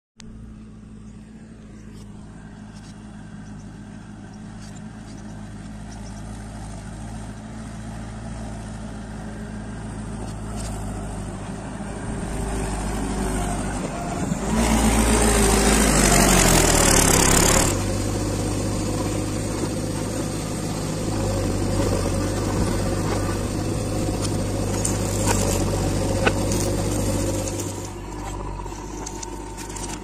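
Diesel engines of a JCB 3DX backhoe loader and a Mahindra tractor running steadily under work, growing gradually louder. About halfway through comes a few seconds of loud, rough engine noise with the pitch falling, then steady running again.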